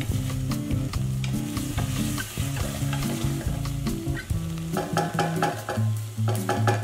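A wooden spoon stirs and scrapes a shallot reduction sizzling in a stainless steel saucepan, the liquid cooked down almost to nothing. Background music with a stepping bass line plays along, with a repeating higher chord joining near the end.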